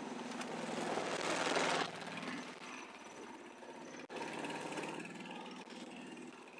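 Small motorcycle passing close on a wet paved lane, loud for the first two seconds, then its engine running more quietly as it rides away uphill.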